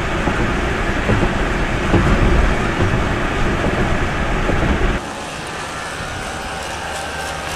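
Car driving across a steel truss bridge, heard from inside: steady road and wind noise with a low rumble. About five seconds in it cuts to quieter roadside street noise.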